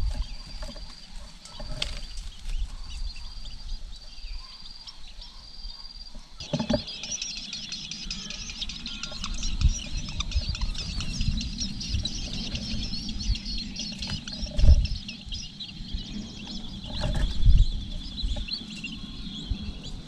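Nestling birds begging for food: a dense stream of rapid, high cheeping starts about six seconds in and keeps on while the parent feeds them. Before it, a thin high note repeats several times, and low rustling and a few thumps from the nest run underneath.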